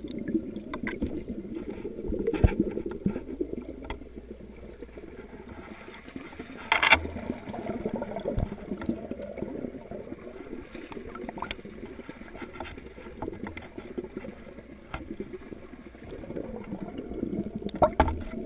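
Water trickling and gurgling in an aquaponics fish tank, with scattered small clicks and two sharper knocks, one about seven seconds in and one near the end.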